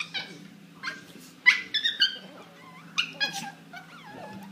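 Dogs fighting, one giving short, sharp, high-pitched yelps and squeals, about six of them in quick bursts.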